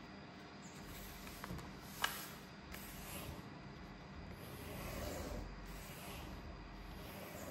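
A sheet of paper being handled and folded, rustling and rubbing as the creases are pressed down, with one sharp paper snap or tap about two seconds in.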